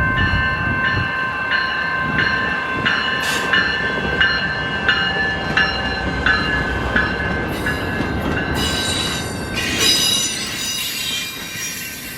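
Amtrak passenger train passing a grade crossing, its wheels squealing on the rails, with a high whine strongest toward the end. A crossing bell rings steadily, about three strikes every two seconds.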